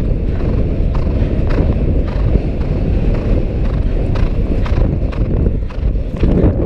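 Horse galloping on turf, hoofbeats thudding in a regular stride rhythm, under a heavy rumble of wind on the microphone.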